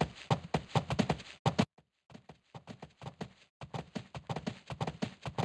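Horse's hooves clip-clopping in a quick, uneven run of sharp strokes, broken by a brief dead gap about two seconds in.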